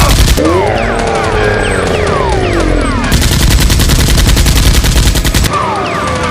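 Rapid automatic gunfire in two long bursts, one ending about half a second in and another from about three seconds in until shortly before the end, over music with falling, swooping tones.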